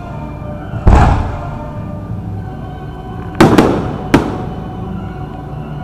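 Aerial fireworks shells bursting: a deep boom about a second in, then a quick cluster of three sharp cracks around the middle, over music playing steadily underneath.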